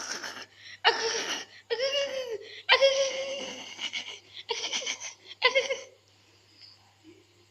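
A person laughing in several loud bursts over about six seconds, then stopping.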